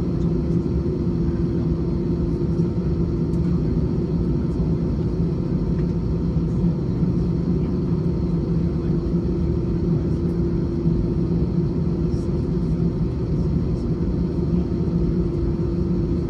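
Airbus A321 engines running steadily, heard inside the passenger cabin as a constant low rumble with a steady two-note hum.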